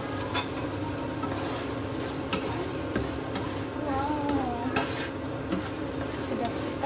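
A spatula stirring and scraping through salted squid and petai sambal frying in a nonstick wok, over a steady sizzle, with several sharp clicks of the spatula against the pan.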